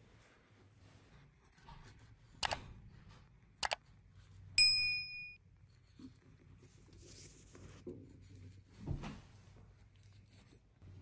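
Kitchen handling sounds while an avocado is prepared: two sharp knocks, then about halfway in one loud ringing clink of a utensil against dishware. A soft scrape and a dull thump follow later.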